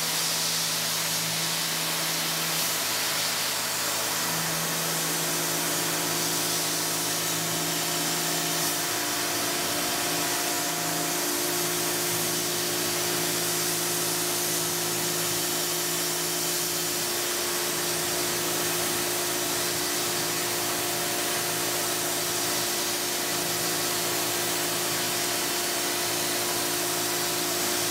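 Tormach 770 CNC mill roughing a small metal part with a 1/4-inch end mill: a steady spindle and cutting tone under a strong hiss from the nozzle blowing at the cutter. The lowest tone cuts out and comes back several times as the tool moves through the part.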